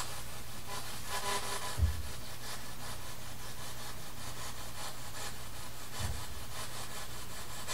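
Quiet room tone: a steady hiss with a low electrical hum underneath, broken by two soft low thumps, about two seconds in and again about six seconds in.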